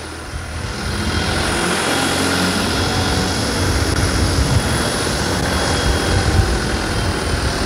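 Turbocharged Farmtrac 45 tractor's three-cylinder diesel engine working hard under load, pulling a cultivator through the soil. It grows louder over the first second as the tractor comes close, then holds steady.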